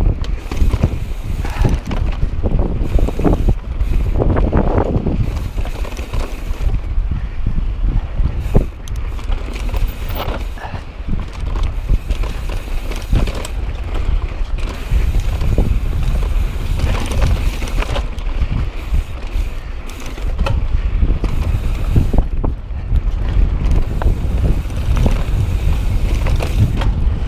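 Mountain bike, a Knolly Warden Carbon, riding a rough dirt trail: wind buffets the microphone over the steady rumble and rattle of tyres and frame, with many sharp knocks as the bike hits bumps.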